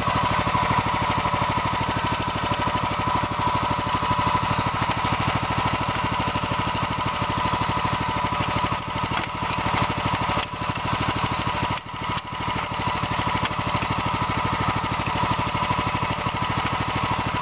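Walk-behind two-wheel tractor's engine idling steadily, with a fast, even beat.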